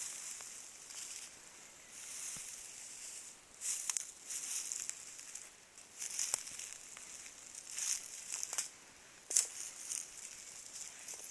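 Rustling and crunching in dry forest-floor litter, in short bursts every second or two.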